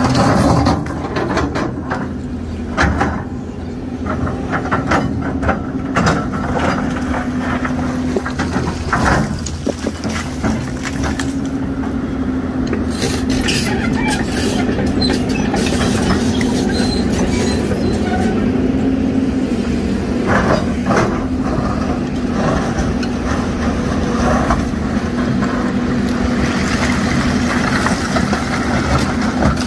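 Tracked excavator's diesel engine running steadily with a droning hum, while its bucket shifts slabs of broken rock, giving several knocks and scrapes of stone.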